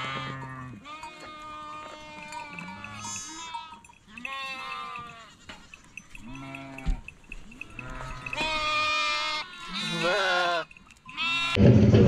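Several goats or sheep bleating, one quavering call after another and often overlapping. Loud music and voices cut in near the end.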